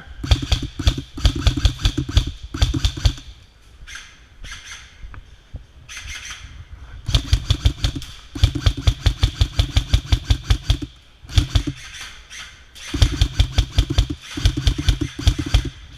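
Airsoft guns firing in long bursts of rapid full-auto shots. Four or five bursts of a few seconds each are broken by short pauses, with a longer lull in the first third.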